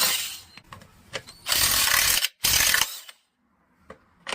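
Ratcheting tool working on a fastener on an electric scooter's wheel, in two loud rattling bursts about a second and a half in and again just after two and a half seconds.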